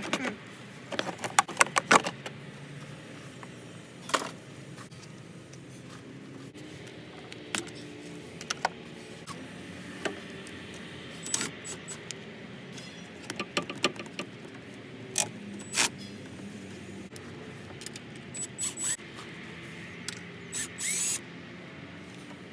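Scattered metallic clinks, plastic clicks and knocks as clips and fittings are worked loose by hand in a car's engine bay, with a short scraping rasp near the end.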